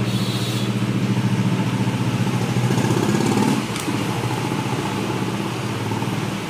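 A steady low mechanical hum, like an engine running at idle, with a brief knock a little under four seconds in.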